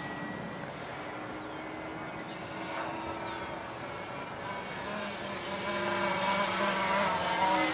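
Electric motor and propeller of an E-flite Mini Ultra Stick RC plane in flight overhead, a bee-like buzz whose pitch wavers as the plane manoeuvres. It grows louder over the last few seconds as the plane comes closer.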